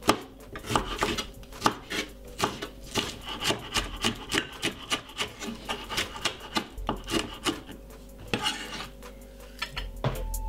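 Knife chopping spring onions on a wooden chopping board: a steady run of short strokes, about three a second, thinning out near the end.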